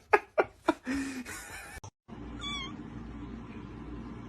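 A run of short sharp clicks, then, after a break, a domestic cat gives one short, high meow about halfway through.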